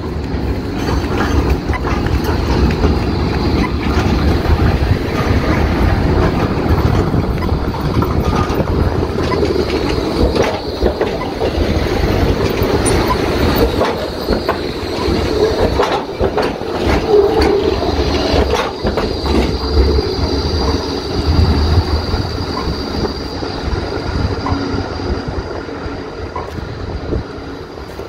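Melbourne E-class tram passing close by through a curved track junction, its wheels rumbling over the rails with some clatter. The rumble is steady and loud.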